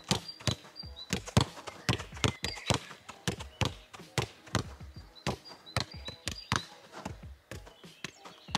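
A football passed quickly against an angled rebound wall: a fast, steady run of sharp thuds, about three a second, as the boot strikes the ball and the ball hits the wall and comes back.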